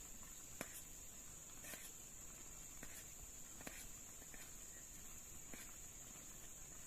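Night insects, crickets or similar, keeping up a steady high-pitched drone, with scattered faint sharp ticks every half second to second.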